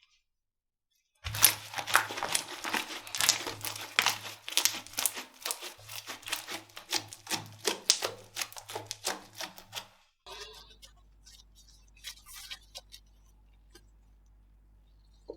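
Slime being squeezed and poked by hand, making a dense run of rapid sticky clicks and pops for about nine seconds. After that come only a few faint clicks over a low steady hum.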